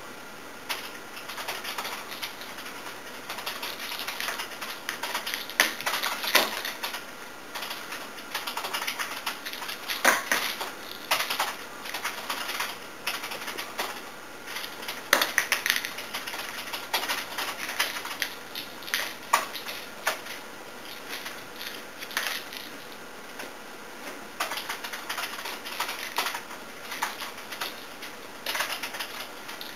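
Typing on a computer keyboard: rapid, irregular key clicks in uneven flurries, some strokes much louder than others.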